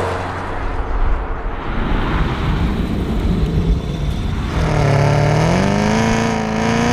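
Hennessey Exorcist Camaro ZL1's supercharged V8 running with a rough rumble; about two-thirds of the way through, its note climbs in pitch and holds higher as the engine is taken up in revs.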